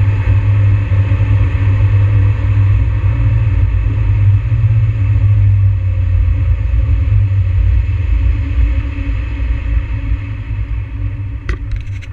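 Mazda NB Miata's four-cylinder engine heard from inside the cabin, a steady low drone while driving. It grows quieter over the last few seconds. A few sharp clicks come near the end.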